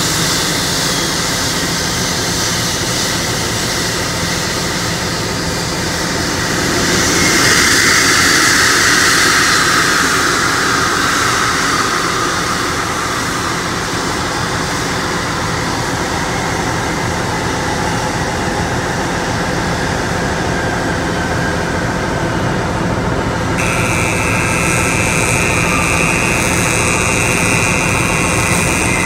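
Airbus A320neo jet engines running at low thrust as the airliner taxis in, a steady whining roar. About seven seconds in it swells louder with a falling whine, and near the end a new high-pitched whine comes in suddenly.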